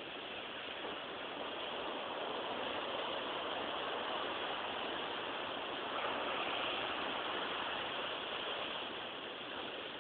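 Sea waves breaking and washing onto the shore: a steady surf hiss that swells over several seconds, is loudest a little past the middle, and eases off near the end.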